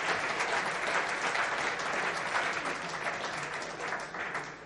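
Audience applauding, many hands clapping, the applause thinning and dying away near the end.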